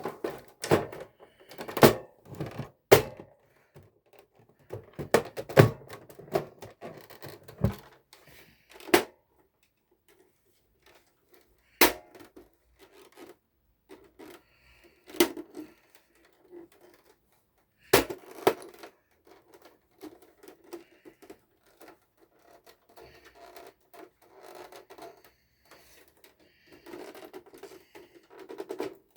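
Sharp clicks and knocks with scraping and handling in between: an original Xbox's lid being fitted and pressed down onto the console. It won't seat because parts inside are out of place.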